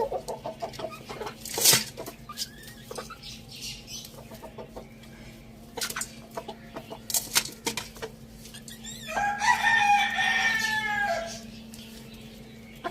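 Chickens clucking and pecking, with a few sharp knocks, then a rooster crowing once for about two seconds, starting about nine seconds in. A steady low hum runs underneath.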